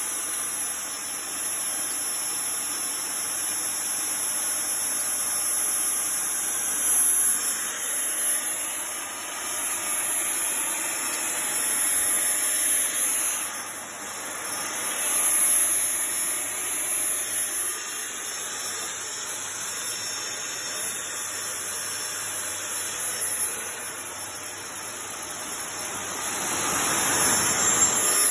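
Backpack disinfectant fogger running, its blower motor giving a steady high whine and hiss as it sprays a disinfectant fog through the wand. The sound swells and fades in loudness several times.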